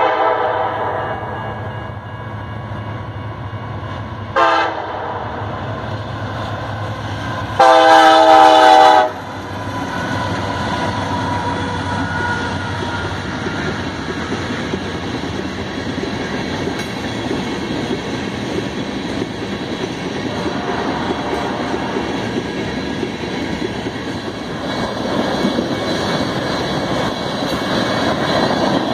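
Air horn of a diesel freight train led by a Canadian National EMD SD70M-2, sounding for a level crossing. A blast fades out at the start, a short blast comes about four seconds in, and a long loud blast follows around eight seconds. Then come the passing locomotives and a long string of covered hopper cars rolling by with steady wheel clatter, louder near the end as the hoppers pass close.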